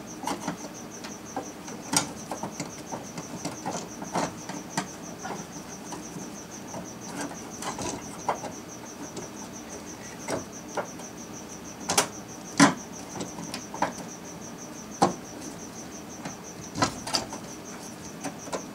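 Sharp, irregular clicks and knocks of a fuel pump lock ring being fitted by hand onto the pump module at the fuel tank opening, with a few louder knocks about twelve to fifteen seconds in. A steady, high, pulsing insect-like trill runs underneath.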